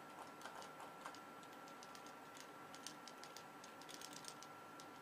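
Faint, scattered light clicks and crackles, most of them in the second half, over a faint steady high-pitched tone.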